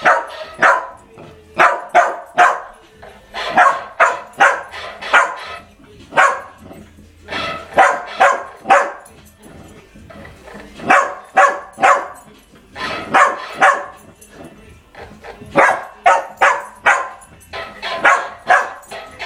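Dog barking in quick runs of three to five short barks, with pauses of about a second between runs, answered by a parrot that mimics its barks.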